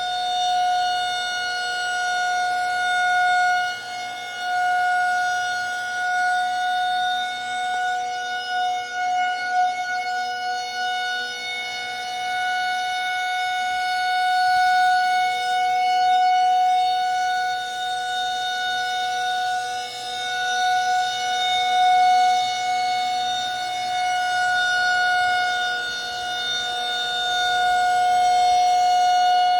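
Federal Signal 2001 outdoor warning siren sounding a steady, unwavering tone on its monthly test, its loudness swelling and fading every few seconds.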